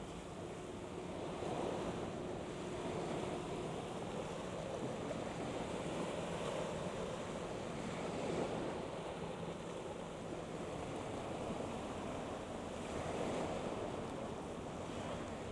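Wind buffeting the microphone at the waterside, a steady rushing that swells and fades, with a faint low steady hum underneath.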